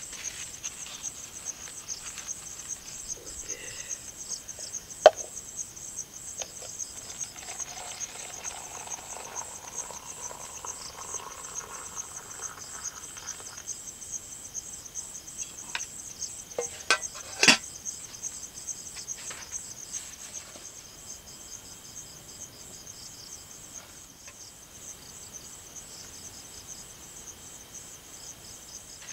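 Crickets chirping in a steady, rapid, high-pitched trill. A few sharp clinks and knocks from dishes and a kettle being handled cut across it, the loudest about 17 seconds in.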